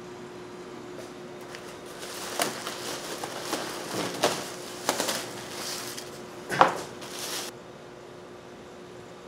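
Plastic wrapping crinkling and rustling as it is pulled off a foam floor mat, mixed with several knocks and thumps as the mat is handled and laid down on a wooden board. The loudest knock comes about two-thirds of the way in.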